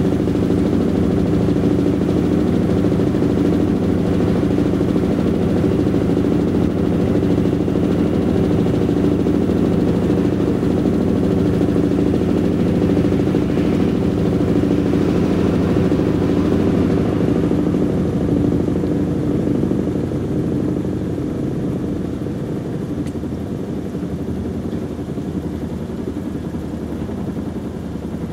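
A steady low machine hum, one unchanging pitched drone, that eases off somewhat about two-thirds of the way through.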